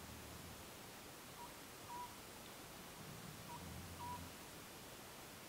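An Oriental scops owl calling faintly: a short note followed by a longer one, the phrase repeated about every two seconds.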